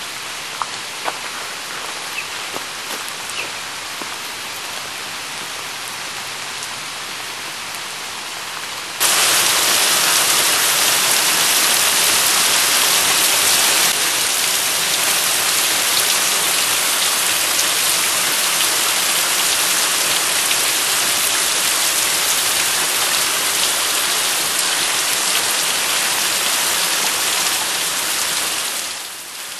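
Steady rain hiss. It jumps suddenly louder about nine seconds in and fades away near the end.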